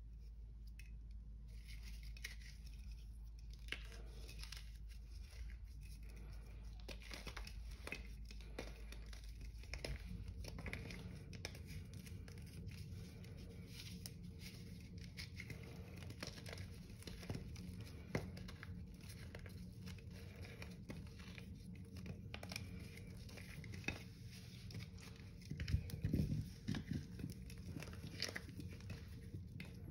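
A dried, moulded block of Comet cleanser powder being squeezed and crumbled by hand, with a dense, irregular crunching and crackling as it breaks into chunks and powder falls into the sink. There is a louder burst of crushing near the end.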